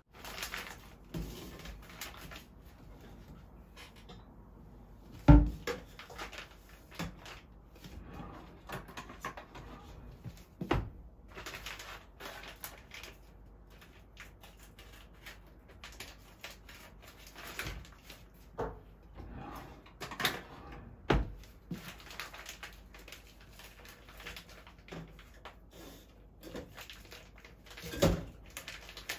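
Kitchen handling sounds: irregular knocks, clinks and rustles as a glass bowl, a packet and a clear blender cup are handled and set down on a stainless steel counter. The sharpest knock comes about five seconds in, and near the end frozen fruit chunks drop into the blender cup with a knock.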